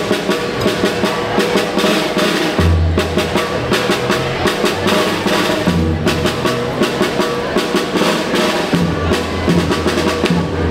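Children's marching band drum corps playing: fast snare drum strokes and rolls over repeated bass drum beats.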